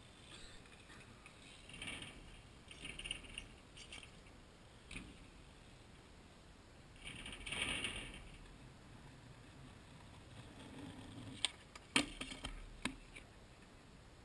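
Faint skateboard sounds: short bursts of wheels rolling and scraping on concrete, then a few sharp clacks of a board striking the ground near the end.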